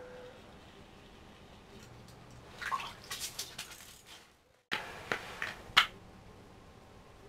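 A walleye being landed through an ice-fishing hole: water splashing and dripping about two and a half seconds in as the fish is lifted out. After a brief gap comes a run of sharp clicks and knocks as the fish is handled.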